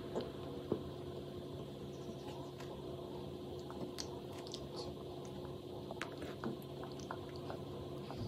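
Quiet eating sounds: a small child chewing and a metal fork clicking now and then against the food and tray, over a steady low hum.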